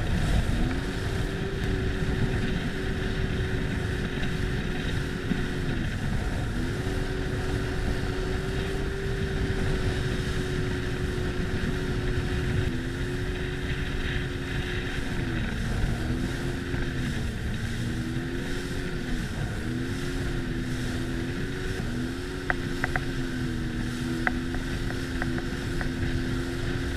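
Sea-Doo personal watercraft engine running under way, its pitch dipping and climbing back several times as the throttle is eased and reopened, over a steady rush of wind noise on the microphone.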